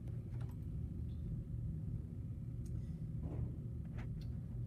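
Steady low room hum with a few faint, short clicks of a computer mouse as pages are clicked through.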